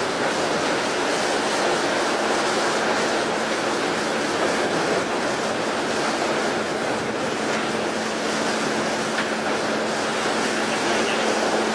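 Steady rush of sea water breaking along the hull of a fishing boat under way, with a faint steady hum underneath.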